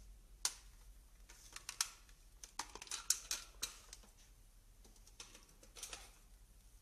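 Irregular light clicks and short rustles of handling close to the microphone, thickest in the middle of the stretch. No hair-dryer motor is running.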